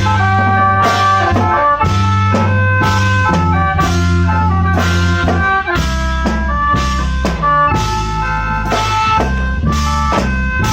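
A Thai khaen band plays: khaen mouth organs carry a sustained melody over held bass notes, with a steady drum-kit beat.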